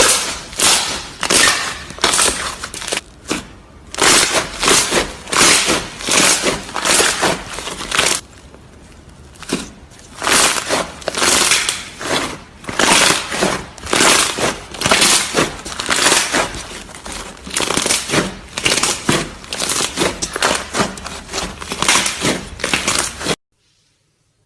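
Slime being squeezed and pressed by hand: a quick, loud run of short squishing noises, a few a second, with a brief lull partway through, cutting off abruptly near the end.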